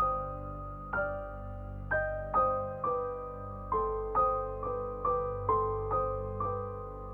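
Gentle background piano music: single notes struck about twice a second, each ringing and fading, over a soft low sustained bed.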